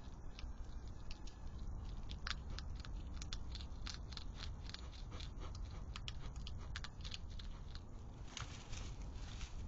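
European hedgehogs crunching dry food pellets at a feeding dish: a quick, irregular run of sharp crunches and clicks over a steady low background hum.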